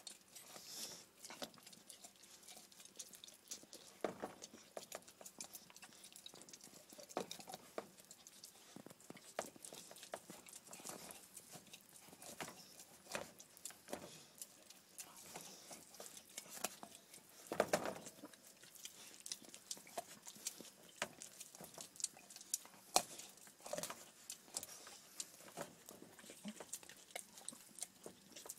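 Bull terrier chewing a raw moose bone: irregular gnawing, with a run of short clicks and snaps as teeth work the bone and a louder crunch about eighteen seconds in.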